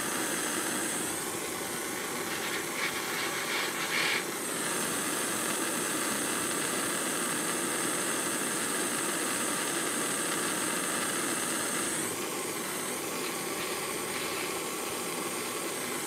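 Propane torch flame hissing steadily while it heats a twisted copper wire splice for soldering. The hiss shifts in tone a few times, with a few brief crackles about three to four seconds in.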